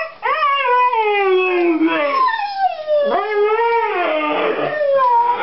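Siberian huskies howling and 'talking': long wavering howls that glide up and down in pitch, broken off briefly about a quarter second in and again about three seconds in. The dogs are howling to be taken for a walk.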